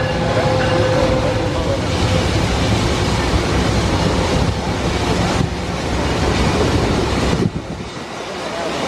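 Amtrak Pacific Surfliner bilevel passenger train rolling past close by: a loud, steady rush of wheel and rail noise. A faint steady whine is heard in the first second or two, and the noise dips briefly about seven and a half seconds in.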